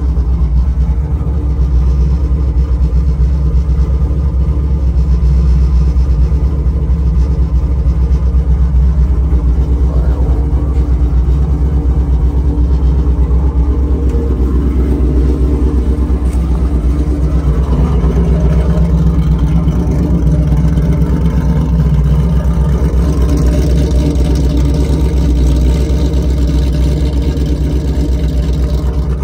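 Ford 466 cubic-inch big-block V8 in a 1979 F100 idling steadily, with a low, even exhaust note.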